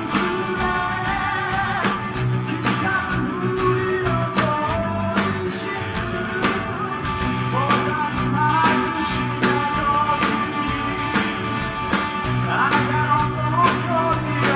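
Live heavy metal band: a male lead vocal sung over electric guitar, bass and drums keeping a steady beat.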